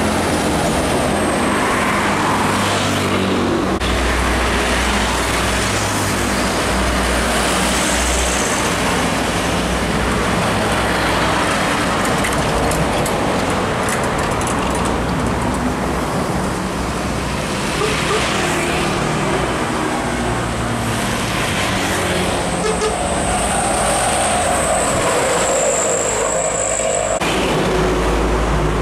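Roadside traffic: heavy diesel trucks and motorcycles passing one after another, a continuous loud road noise with a low engine rumble that swells and fades as each truck goes by.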